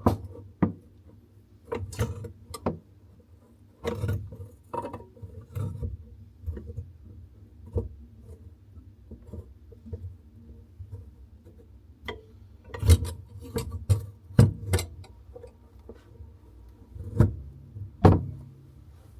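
Scattered clicks and knocks from handling tools and metal tap fittings, in irregular clusters, over a steady low hum.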